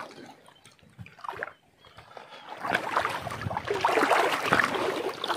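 Shallow sea water sloshing and splashing around a wader's legs, starting up about two and a half seconds in after a quieter stretch and staying irregular.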